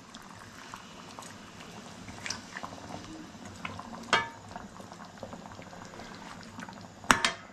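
Liquid bubbling in a pot on the stove, a steady simmer with small pops and ticks. There is a sharper click about four seconds in and a louder metallic clatter near the end.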